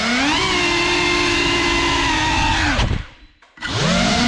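Cinewhoop FPV drone's motors and ducted propellers whining at a steady pitch, with a brief dip in pitch near the start. About three seconds in the sound cuts out almost to nothing for half a second, then spools back up with a rising whine.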